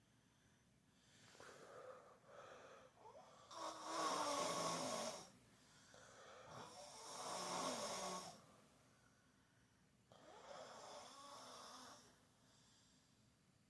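An 8-year-old girl snoring in her sleep: about four long snoring breaths with short quiet gaps between them, the two in the middle the loudest.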